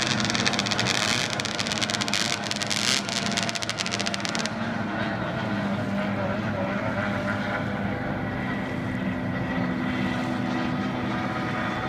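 Racing hydroplane engines running hard as several boats pass across the lake. A dense crackling rattle lasts the first four seconds or so, then settles into a steadier engine drone.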